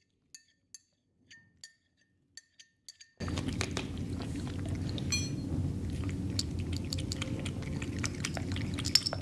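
A cat chewing and licking raw meat: small wet clicks, faint and sparse at first, then many of them over a steady low hum from about three seconds in.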